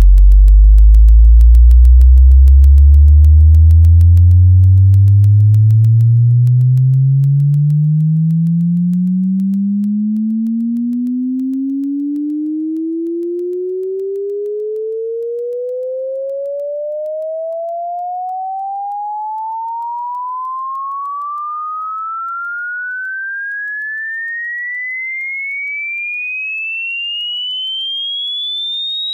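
Sine-wave test tone sweeping steadily upward in pitch, from a deep bass hum around 50 Hz to a high whistle near 4 kHz, as a speaker bass-response sweep. It is loudest in the deep bass at the start, with added overtones there, and grows quieter as it climbs past the midrange.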